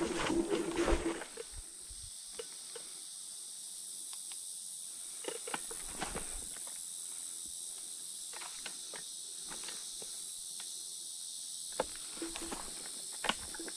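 Dragon GTR v2 electric scooter's motor whining with rattles over rough ground for the first second. Then the scooter goes quiet, leaving a steady high-pitched insect drone and scattered crackles of twigs and leaf litter. The motor whine comes back briefly near the end.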